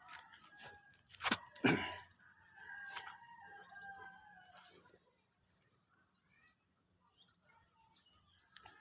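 Birds chirping over and over in short high calls, with two sharp knocks about a second and a half in.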